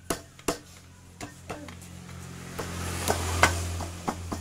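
Sharp clicks and light knocks of hands working an aluminium motorcycle crankcase, the Yamaha NMAX 155's, as it is seated around the crankshaft. A rushing noise with a low hum swells from about halfway through and fades near the end, with the loudest knocks on top of it.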